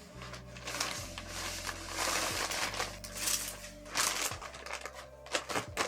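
Packaging crinkling and rustling in repeated bursts as an item is packed up, over background music with sustained low notes.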